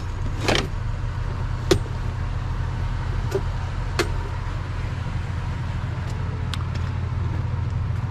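Vehicle engine idling as a steady low hum, with a few sharp clicks and knocks of items being handled.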